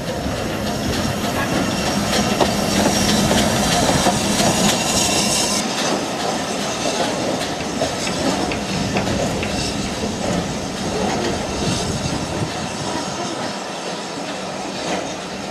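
A steam train moving through the station: a steady rumble with wheels clicking over the rail joints, and a hiss of steam that cuts off suddenly about six seconds in.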